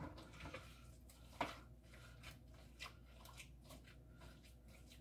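Hands kneading raw ground-beef meatloaf mixture in a bowl: faint, irregular squishing and small clicks.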